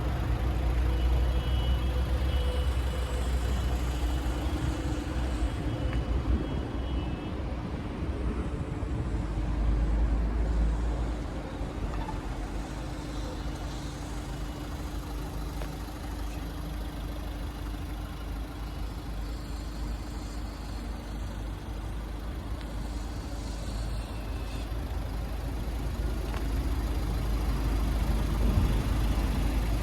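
A vehicle engine running steadily at idle, a low rumble that drops a little in level about a third of the way in.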